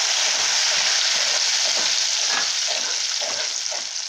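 Melted butter sizzling and bubbling in hot melted sugar just after it is added, the caramel for peanut chikki. A metal spatula stirs the mixture and scrapes the pan in repeated strokes, and the sizzle eases slightly near the end.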